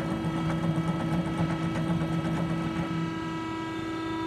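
Marvel V10A band saw running with a steady machine hum made of several held tones; a lower part of the hum drops out about three and a half seconds in.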